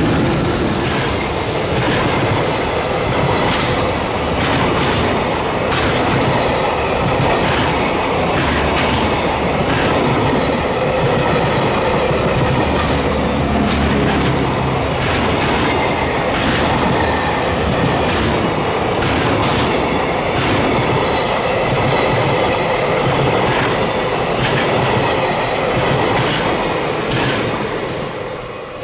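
Train passing at speed, its wheels clacking in quick runs over rail joints, with a faint steady ringing above. The sound fades near the end.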